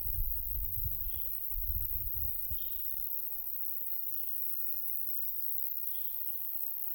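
Summer grassland ambience: a steady, high-pitched chirring of insects, with a soft note repeating about every second and a half. Wind rumbles on the microphone for the first two seconds or so, then eases.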